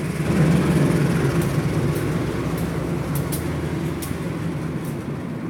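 CC 203 diesel-electric locomotive passing slowly at close range, its diesel engine running with a low hum. The hum is loudest about half a second to a second and a half in and then slowly eases, with a few light sharp clicks over it.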